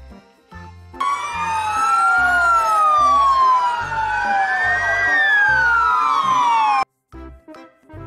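Several emergency-vehicle sirens from an ambulance convoy wailing together in slow, overlapping rises and falls of pitch. They start about a second in and cut off suddenly near the end, with background music underneath.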